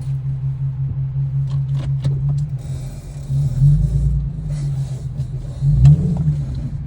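Infiniti Q50 driving with the passenger window down: a steady low drone from the road and engine, broken by two heavier low thumps, about halfway through and again near the end, as it goes over bumps. The thumps are the noise the owner hears from the passenger-side suspension after bumps.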